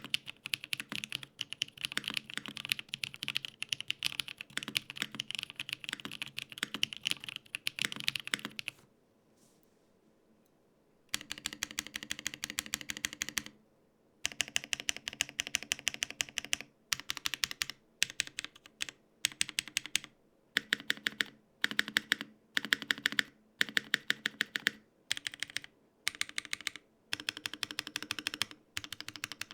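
Typing on a Gok 7V custom 75% keyboard built with an FR4 plate, no foam, lubed Holy Panda tactile switches and GMK Oblivion keycaps. There is fast continuous typing, a pause of about two seconds, then short runs of keystrokes with brief gaps between them.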